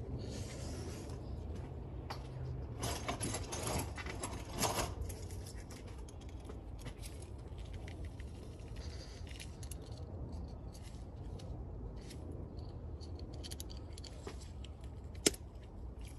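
Small metal hand tools and bits clinking and rattling, with a cluster of rattles a few seconds in and a single sharp click near the end.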